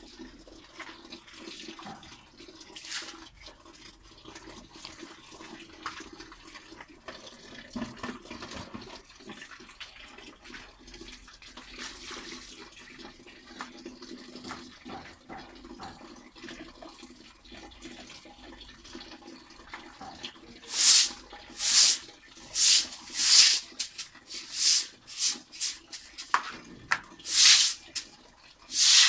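Faint water sounds, then from about 21 seconds in a hand scrub brush scouring a wet concrete floor in loud strokes about a second apart.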